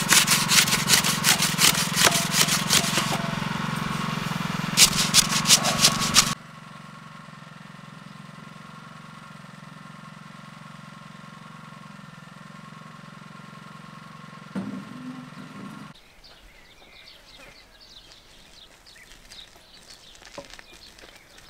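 Wet sand-and-cement concrete being rapidly jabbed and worked around a metal post to consolidate it and get the air out: a fast run of scraping strokes over a steady motor hum. About six seconds in it drops abruptly to much quieter outdoor background.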